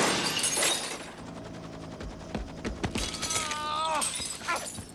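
A glass skylight shattering under struggling bodies: a loud crash of breaking glass that dies away within about a second. Scattered thuds and knocks follow, with a short pitched sound that bends about three seconds in.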